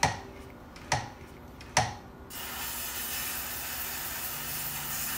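Three sharp knocks about a second apart, then, a little over two seconds in, a steady hiss as an aerosol can of electrical contact cleaner sprays into the motorcycle's side-stand pivot to flush out grit.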